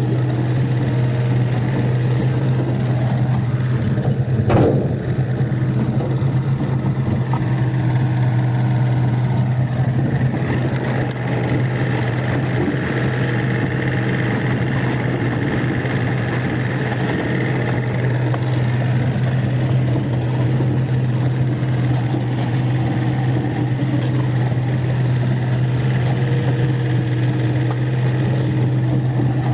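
Kobelco SK50P mini excavator's diesel engine running steadily under work, with a single knock about four and a half seconds in and a higher whine that comes and goes in the middle.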